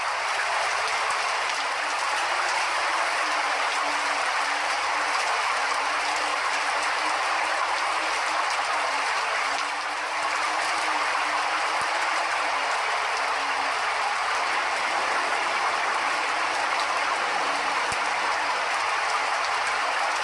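Steady rain falling, a dense even hiss with no single drops standing out. A faint wavering low hum runs underneath for much of the first two-thirds.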